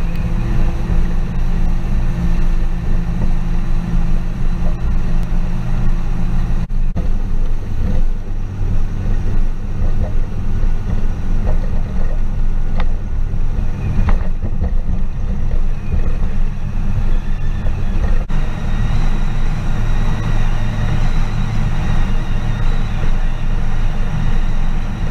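Yamaha F115 four-stroke outboard running steadily at speed under way, mixed with rushing wind and water. The engine is running like new.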